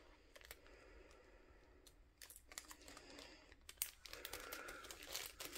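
Faint crinkling of small plastic bags holding diamond-painting rhinestones being handled and put away, with scattered light clicks, getting busier about two thirds of the way in.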